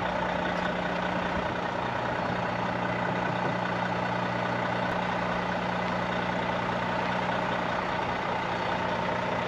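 Volvo VNL 760 semi-truck's diesel engine idling: a steady, even hum that does not change.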